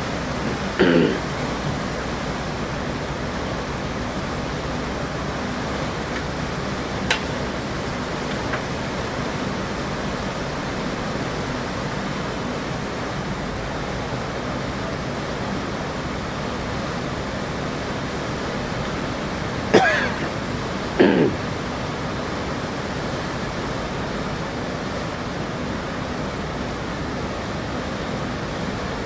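Steady rushing of water churned up by the propellers of a river cruise ship in a canal lock. Short sounds from a person break in about a second in and twice around twenty seconds in.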